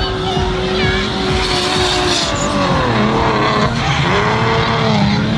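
Drift cars' engines running at high revs, the pitch dipping and climbing back twice as the cars slide, with tyres squealing and screeching over the engine.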